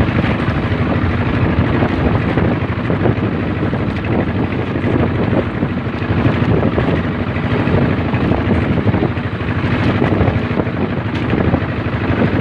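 Engine of a motorized bangka outrigger boat running steadily under way, with water rushing along the hull.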